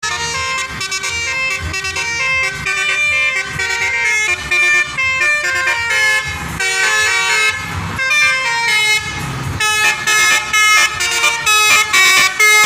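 Indonesian 'telolet' bus horn on a Tunggal Jaya bus: a set of air horns sounding a multi-note melody in quick steps, with the bus's engine running underneath.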